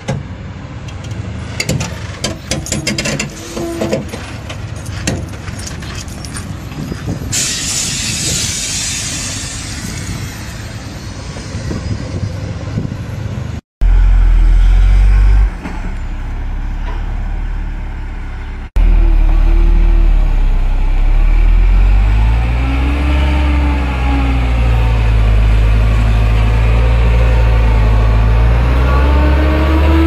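Heavy truck diesel engines working under load. First come scattered clicks and rattles as a truck creeps along with a huge stone block. After two abrupt cuts, a dump truck stuck in mud runs its engine loud and deep, the pitch rising and falling as it revs.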